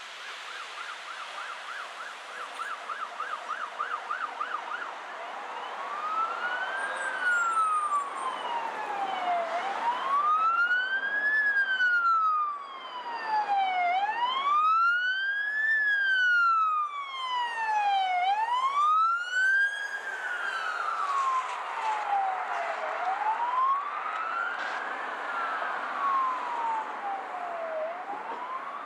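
Emergency vehicle electronic siren on a fire battalion chief's pickup truck. It starts with a fast yelp, switches after about five seconds to a slow wail rising and falling every four seconds or so, and a second siren wails over it through the middle, where it is loudest.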